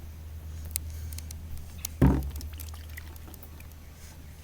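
Hands handling the mower's fuel system while trying to drain the old gas: a few faint clicks and one thump about two seconds in, over a steady low hum.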